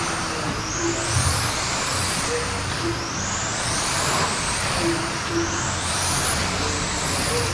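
Several radio-controlled sprint cars running laps on a dirt oval, their motors whining and rising in pitch as they accelerate, again and again every couple of seconds, over a steady rushing noise.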